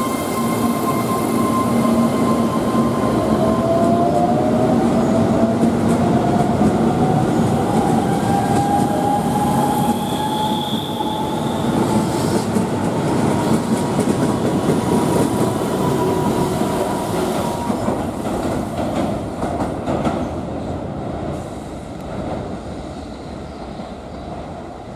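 Keihan 3000 series electric train pulling out of the platform, its motor whine rising in pitch as it gathers speed, over the rumble and clack of wheels on the rails. The sound fades over the last several seconds as the train draws away.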